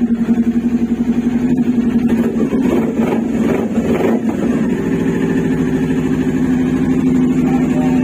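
Kawasaki Ninja 400's parallel-twin engine running through an SC Project slip-on exhaust, a steady, deep exhaust note.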